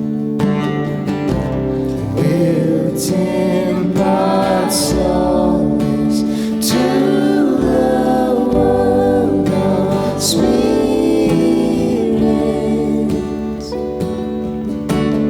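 Song: voices singing held, gliding notes over an acoustic guitar accompaniment.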